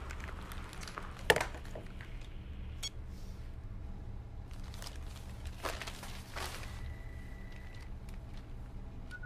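Quiet room tone: a low steady hum with a few scattered light clicks and knocks, the loudest a sharp click about a second in. A faint thin tone sounds for about a second past the middle.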